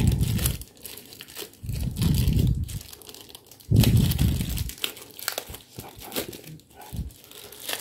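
Protective wrapping crinkling and rustling as hands pull it off an adhesive camera mount. Three heavier, duller bouts of handling come about a second apart in the first half.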